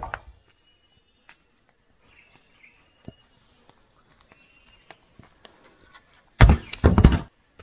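A quick run of loud knocks and thuds about six and a half seconds in, lasting just under a second. Faint scattered clicks and a distant high call come before it.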